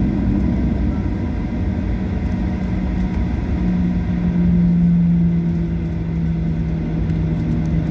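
Cabin noise of a Boeing 737-800 taxiing after landing: its CFM56-7B engines running at low taxi power with a steady rumble and a low hum, the hum growing louder about four seconds in and easing slightly lower later.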